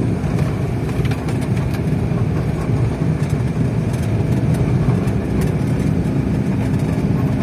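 Suzuki DA17V kei truck driving on a gravel road, heard from inside the cab: a steady engine drone with tyre rumble from the loose road surface and a few faint clicks.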